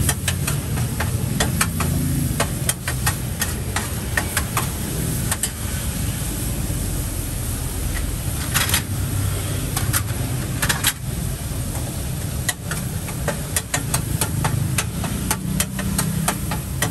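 Street-food stall ambience: a steady low engine rumble with frequent short, sharp clicks and clinks.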